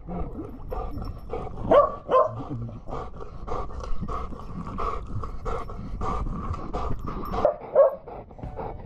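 A dog barking over and over, a few barks a second, with a couple of short higher-pitched calls among them.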